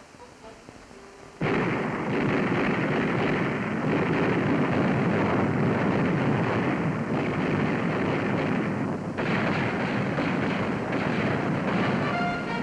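Ship's guns firing in a dense, continuous barrage that starts suddenly about a second and a half in, with a brief lull near the end.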